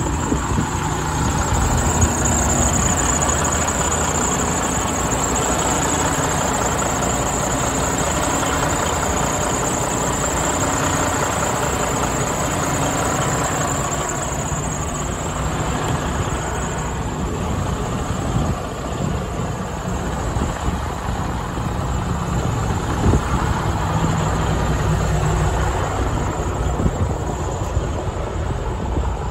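Freightliner Cascadia's diesel engine idling steadily, with a thin high whine over roughly the first ten seconds.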